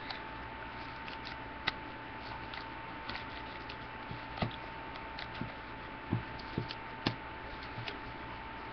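Hands working with ribbon and craft materials close to the microphone: scattered small clicks and rustles, with a few louder soft knocks in the second half, over a steady high-pitched whine and hiss.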